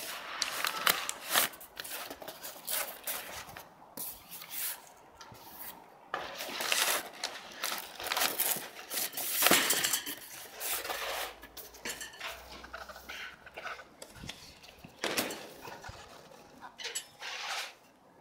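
Crumpled brown packing paper rustling and crinkling, and a cardboard box being handled, in irregular bursts as the packing is pulled out.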